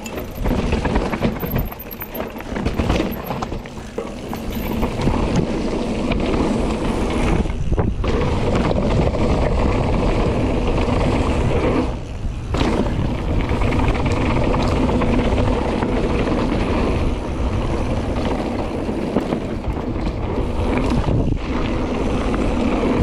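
Mountain bike riding down a downhill dirt trail: steady loud rolling and rattling noise from the tyres and bike, dipping briefly a few times.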